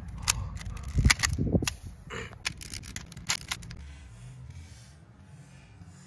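3x3 Rubik's cube being twisted by hand: quick, irregular plastic clicks and clacks of the layers turning, densest in the first two seconds and dying away after about three and a half seconds.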